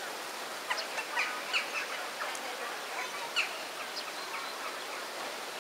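Eurasian wren giving a loose series of short, sharp ticking calls, irregularly spaced over about four seconds, over a steady background hiss.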